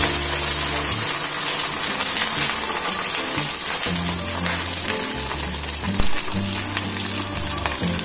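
An egg sizzling as it fries in oil in a pan, with a steady crackling hiss. Background music with a bass line plays over it.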